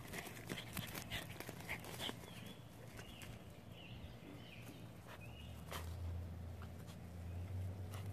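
Dogs scratching and scuffling in loose dirt and grass as they dig, a quick run of small scrapes over the first two seconds. Faint bird chirps come in the middle, and a low hum joins from about five seconds in.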